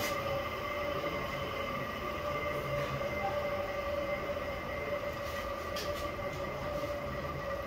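Three-phase induction motor running steadily, a mechanical hum with a steady whine of several even tones.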